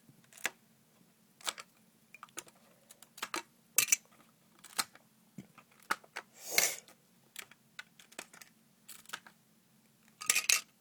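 Lego bricks being handled and pulled apart by hand: scattered sharp plastic clicks and rattles at irregular intervals, with a longer rustling noise about six and a half seconds in.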